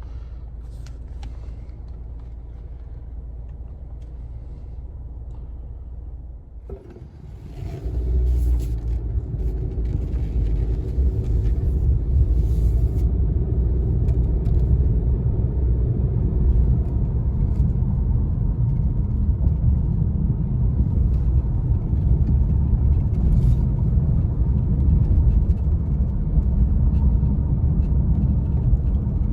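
2018 Honda CR-V running at a standstill, then pulling away about seven seconds in and driving on with a steady, louder engine and road rumble.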